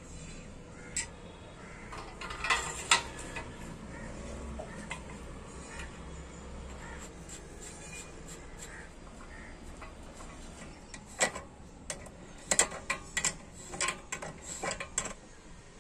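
Sharp metal clinks and taps as the steering-head bearing cups, ball races, front fork and head nut of a TVS 50 moped are handled and fitted together. A few come about two and a half seconds in, and a quick run of them comes from about eleven to fifteen seconds.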